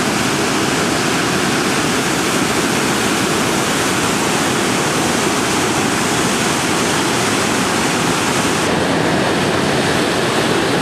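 Waterfall rushing: a loud, steady wash of falling water with no let-up.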